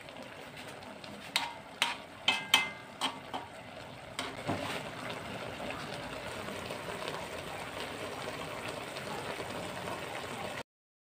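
Pinangat, hasa hasa fish and tomatoes in a vinegar broth, simmering in a pan with a steady soft bubbling. Several sharp, faintly ringing taps come in the first few seconds, and the sound cuts off suddenly near the end.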